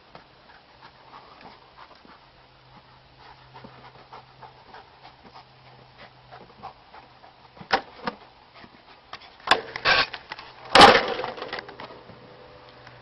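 A dog panting, with a few sharp wooden knocks and a louder clatter near the end as the dog works the tilting board of a homemade wooden ball launcher.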